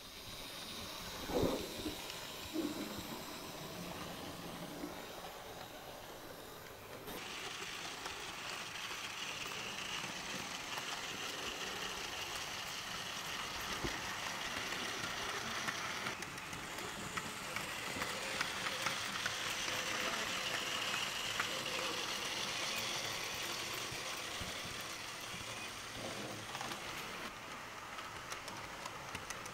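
Model trains running on a layout: a steady hiss of running noise with faint clicks, in several clips cut together, so the sound changes abruptly about 7, 16 and 27 seconds in. Near the start there is a short pitched sound.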